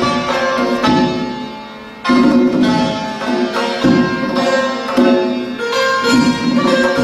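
Santur and tombak playing Persian classical music together in dastgah Segah: quick struck notes on the santur with hand strokes on the tombak. The sound fades briefly about a second and a half in, then comes back with a strong accented stroke.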